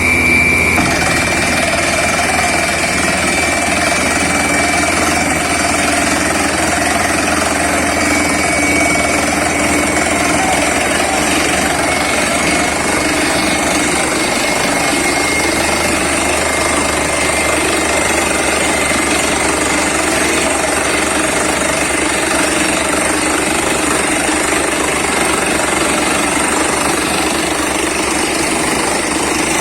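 Borewell drilling rig's air-driven hammer pounding rapidly and steadily, starting about a second in over the running rig engine and air compressor.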